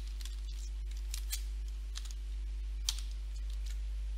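Computer keyboard keys clicking as code is typed: a handful of irregular keystrokes, the sharpest about three seconds in, over a steady low hum.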